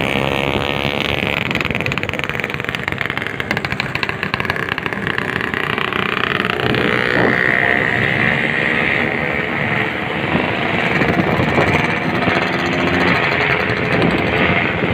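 Motorcycle engines running while riding in traffic, the pitch sliding up and down as the bikes speed up and ease off.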